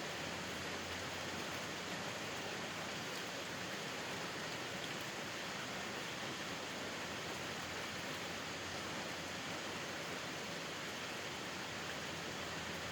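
Steady rain falling, an even hiss of many drops with no single drops standing out.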